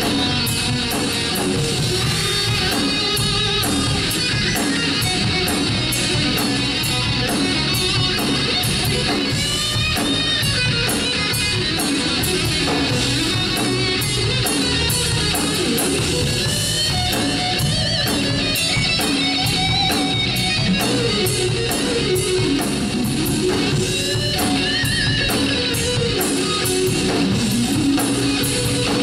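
Live rock band playing an instrumental passage: electric guitar to the fore over bass guitar and a steady drum beat with regular cymbal hits, no singing.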